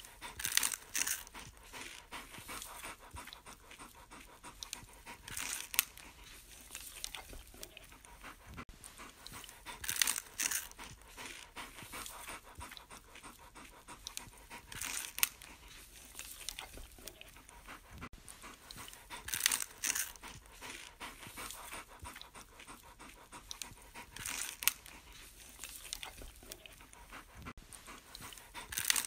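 Bernese mountain dog panting steadily. Every four or five seconds there is a brief scratchy rustle as the cardboard pie sleeve is shaken above it.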